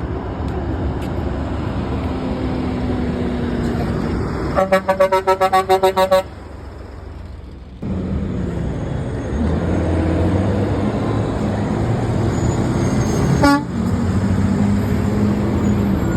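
Truck horn blown as a rapid, stuttering string of short honks, about six a second for a second and a half, over road traffic noise. Afterwards a heavy truck engine runs close by and grows louder, with one short sharp blip near the end.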